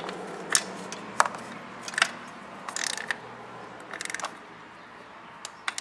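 Ratchet wrench with a 12 mm socket tightening a motorcycle's oil drain plug: single clicks and short runs of ratchet clicking, spaced irregularly, as the handle is worked back and forth.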